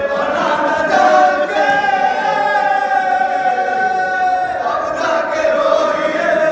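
A small group of men chanting a marsiya, a Shia elegy, together without instruments, drawing out long held notes in a slow, mournful melody.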